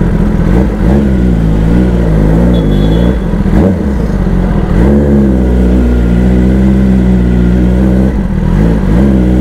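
Kawasaki ZX-10R inline-four superbike engine under way, with its revs rising and falling. It breaks briefly about three and a half and eight seconds in.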